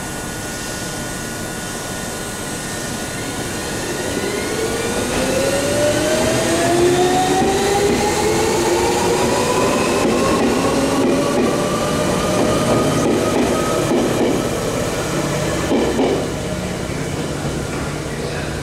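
Chichibu Railway 7500 series electric train (ex-Tokyu 8090 series) pulling away and accelerating, its motor whine climbing steadily in pitch for about ten seconds. A few knocks of wheels over rail joints come as the cars pass, and the sound eases off near the end as the train leaves.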